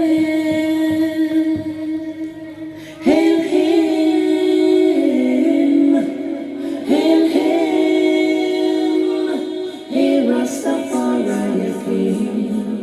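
Opening of a reggae tune played over a sound system: unaccompanied-sounding sung vocals holding long notes, with new phrases coming in about three, seven and ten seconds in.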